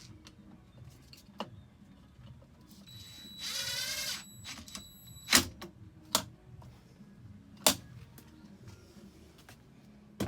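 A few sharp clicks and knocks, the loudest two about five and a half and seven and a half seconds in, and a buzzing tone lasting about a second a little after three seconds in, over a low steady hum.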